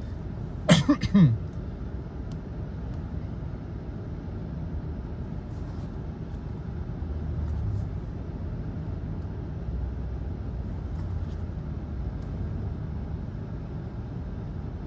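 Steady low rumble of a car idling, heard from inside the cabin. A brief voice sound breaks in about a second in.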